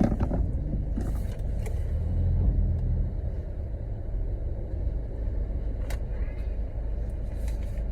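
Steady low rumble of a car's idling engine heard from inside the cabin, swelling slightly a couple of seconds in, with a few faint clicks.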